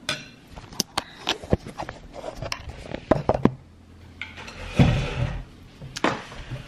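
Kitchen clatter: a string of sharp clicks and knocks of utensils and dishes being handled, with a longer, heavier noise about five seconds in.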